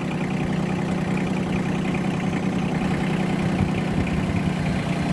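Engine of a front-end loader running steadily at low revs, an even, unbroken hum.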